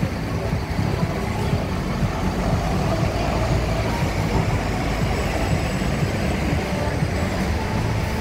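Scania K230UB city bus's diesel engine and running gear as the bus drives: a steady low rumble.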